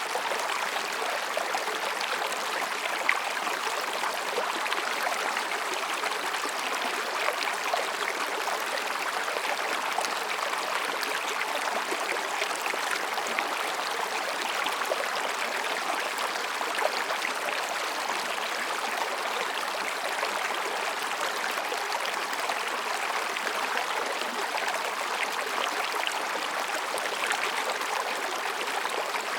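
Mountain stream babbling and splashing over rocks, a steady rush of water with small gurgles and splashes throughout.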